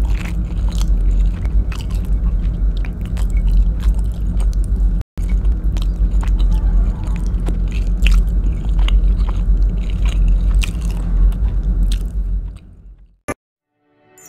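Close-miked chewing and mouth sounds of someone eating rice and beef adobo by hand: many wet clicks and smacks over a steady low rumble, with a brief drop-out about five seconds in. The sound fades away near the end.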